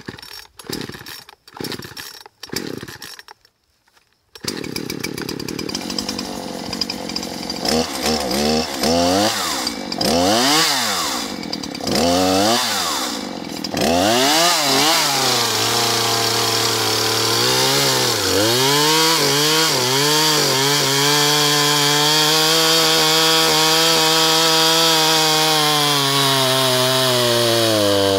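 Poulan Pro two-stroke chainsaw being pull-started: a few short pulls, then the engine catches about four seconds in. It is revved up and down several times to warm it and get oil onto the chain, then held at high revs with a couple of brief dips as it goes into a dead log.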